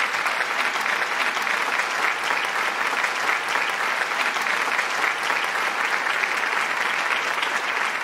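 Audience applauding steadily, a dense even clatter of many hands clapping.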